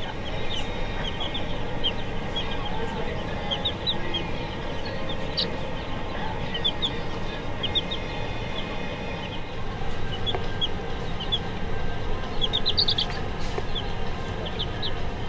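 A brood of baby chicks peeping: many short, high-pitched peeps, scattered and overlapping throughout, over a steady low hum.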